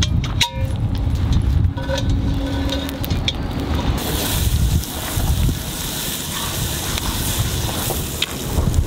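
Wind buffeting the microphone, a steady low rumble, joined about four seconds in by a brighter hiss.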